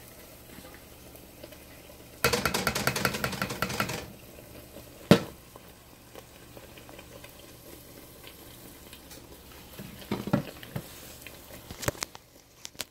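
Pepita paste frying in oil in a covered pot, sizzling faintly under the glass lid. A loud burst of rapid clattering about two seconds in lasts nearly two seconds, then comes a single sharp clink, with a few smaller clinks near the end.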